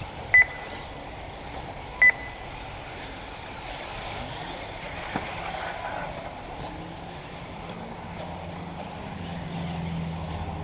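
Two short, loud electronic beeps about a second and a half apart, over the steady whir of 1/8-scale electric RC buggies running on the track.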